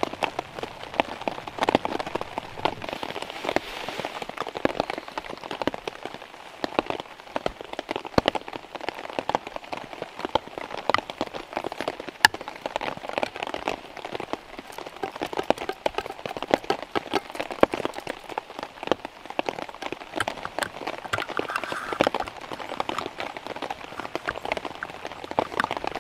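Rain falling on a tarp shelter: a dense, irregular patter of drops.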